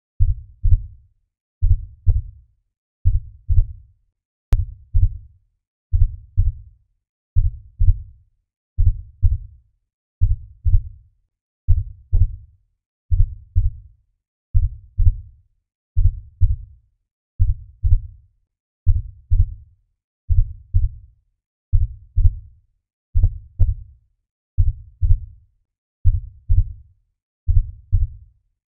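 Slow heartbeat: a low double thump, lub-dub, repeating evenly about once every one and a half seconds.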